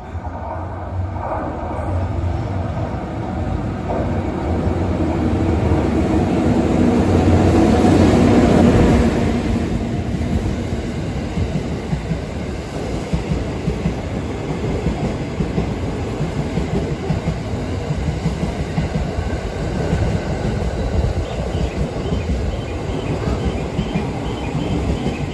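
Stainless-steel JR electric multiple unit in blue-and-cream Yokosuka Line stripes running through the platform. Its sound builds to a peak about nine seconds in, then holds as a steady rumble of wheels on rail as the cars go by.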